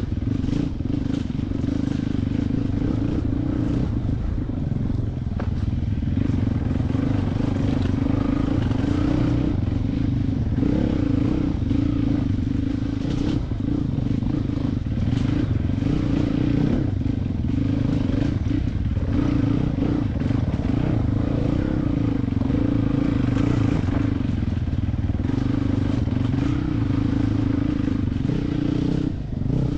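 450 cc four-stroke enduro dirt bike engine running at a fairly steady, part-open throttle, with small rises and dips in engine speed. Short clattering knocks from the bike run through it.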